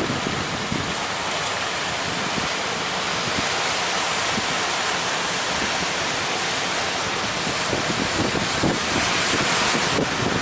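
Steady rushing noise of breaking surf and wind, swelling briefly near the end.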